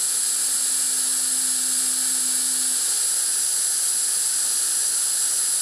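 Steady hiss of the dental milling machine's air injector blowing on the wax, with the micromotor spinning a 1 mm wax bur at about 3000 rpm as it mills a groove in a wax crown. A faint low hum stops about halfway.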